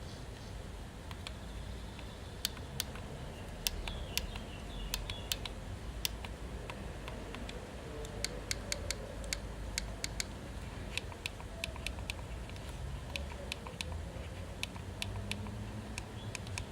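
Logitech M590 Silent mouse being clicked: a series of sharp, light clicks, a few spaced out at first and then quicker runs of clicks from about halfway through.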